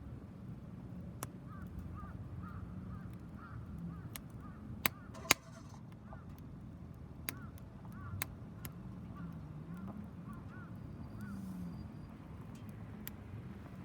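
Wood fire burning in a homemade tower-type fire pit during a burn test: a steady low rumble with scattered crackles and sharp pops, two loud pops close together about five seconds in.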